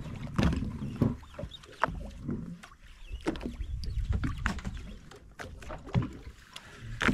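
Sea water lapping and sloshing against a small boat's hull, with a low rumble of wind and scattered sharp clicks and knocks.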